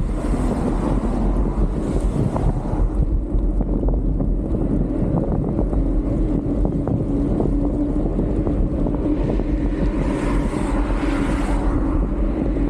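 Steady wind noise buffeting a bike-mounted camera's microphone while riding along a highway, over a constant low rumble of tyres on asphalt, with a truck going by near the start.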